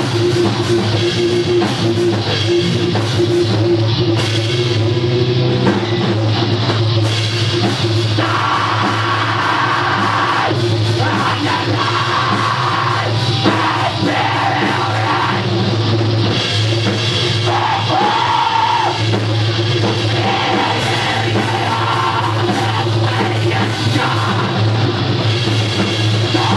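Live heavy rock band playing loud, with electric guitars, bass guitar and drum kit, and a singer's voice over them.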